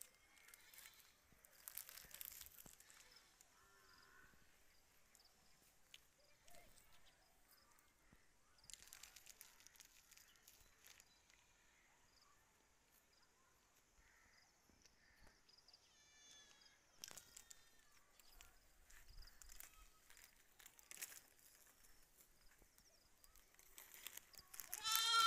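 Faint outdoor quiet with scattered soft rustles and clicks. A brief wavering high call about two-thirds of the way in, and a louder high-pitched call with several overtones near the end.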